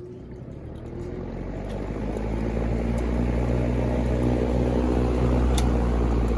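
Montgomery Ward box fan running: a steady rush of air over a low electric-motor hum, growing louder over the first two seconds and then holding steady, with a faint click about five and a half seconds in.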